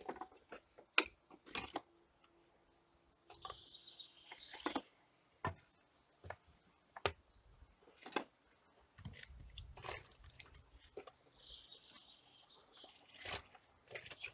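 Wooden kindling knocking and clattering as pieces are picked from a plastic crate and stacked into the steel firebox of a Stirling engine: a scatter of irregular sharp knocks.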